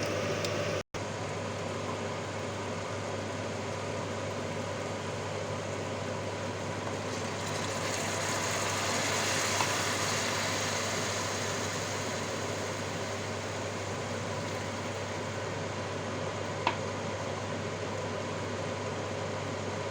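Steady sizzling hiss of a pan of pilaf ingredients cooking on the stove, with a low hum beneath it, swelling slightly in the middle; the sound cuts out for an instant near the start and there is a single sharp click near the end.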